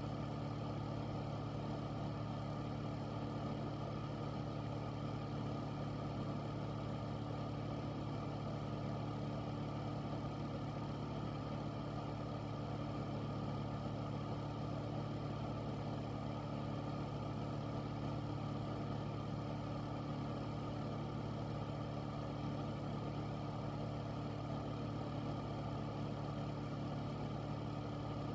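Air filter's fan running steadily: a constant low hum with a rush of moving air over it, unchanging throughout.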